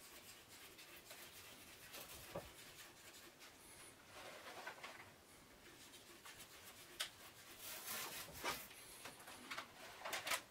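Plastic squeegee rubbing self-adhesive vinyl furniture foil down onto a wooden panel: faint, uneven scraping strokes, with a couple of sharper clicks and a brief crackle of the film near the end.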